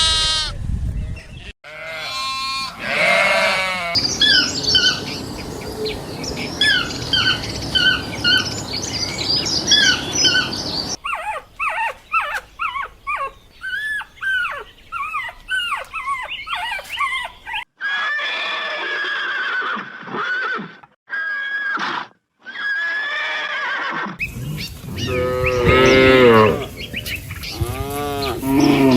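A string of different farm animal calls cut one after another: pitched bleat- or moo-like calls at the start, a long stretch of many quick chirping calls in the middle, and loud drawn-out calls again near the end, cattle mooing among them.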